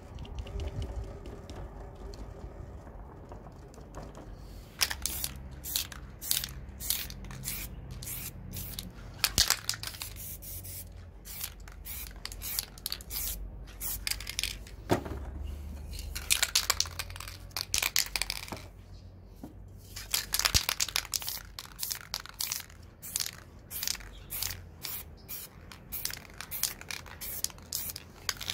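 Aerosol spray paint can sprayed in many short hissing bursts, with a few longer hisses of about a second, as colour is laid onto the painting.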